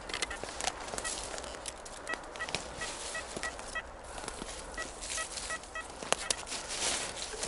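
Metal detector giving runs of short, evenly spaced beeps, about three to four a second, over rustling and scraping.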